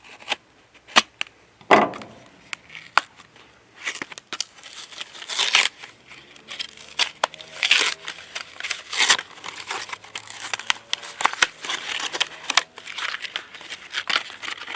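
Product packaging being cut open with a carpet knife and torn apart by hand: crinkling and tearing, with many sharp clicks and short scraping swishes.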